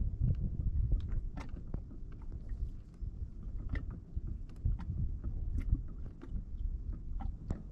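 Sounds aboard a fishing kayak afloat: a low, uneven rumble with scattered short, sharp clicks and knocks at irregular moments.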